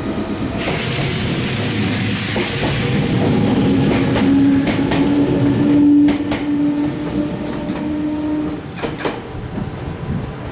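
A Meitetsu 6800-series electric train pulls out of the station. It starts with a hiss of air in the first few seconds, then a steady motor whine that rises slightly in pitch as it gathers speed, with a few clacks of wheels over rail joints.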